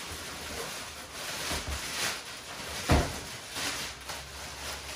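Packing material being handled and rustled, with one louder knock about three seconds in.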